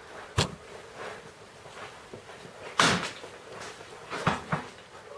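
A few scattered knocks and clicks: a sharp click about half a second in, a louder knock near three seconds, and two lighter clicks a little after four seconds.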